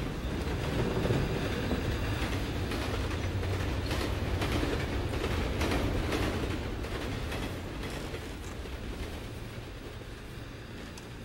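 A steady low rumble with irregular clattering strokes through it, growing quieter over the last few seconds.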